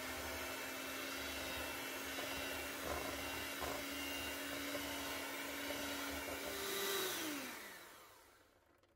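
Electric hand mixer running at a steady pitch, its beaters churning mashed sweet potato batter in a stainless steel bowl. Near the end the motor speeds up briefly, then winds down and stops.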